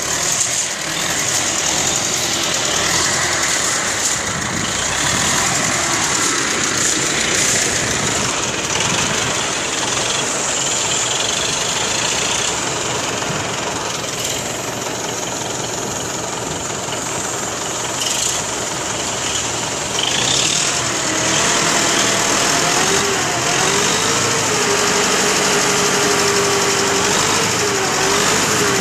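Diesel engine of a U-650 tractor running continuously. In the last several seconds its pitch wavers up and down.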